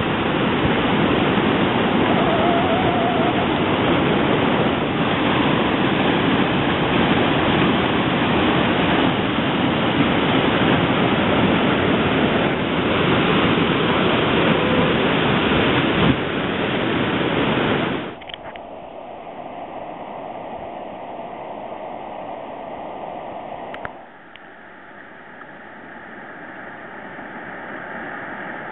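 Whitewater rapids pouring over a rock ledge on a river, a loud steady rush. About 18 seconds in it drops suddenly to a quieter rush of flowing river water, and falls again a little later.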